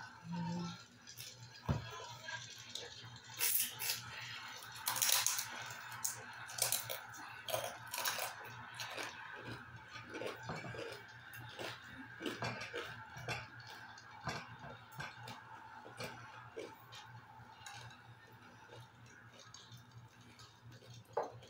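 Eating at a table: irregular crunches and small clicks of chewing and handling food, with the odd light clink of dishes, over a faint steady hum.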